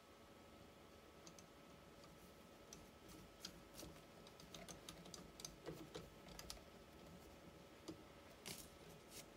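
Faint, irregular small clicks and taps of metal parts as a Fiat 126 Bis starter motor is handled and fitted together by hand, mostly from about three seconds in.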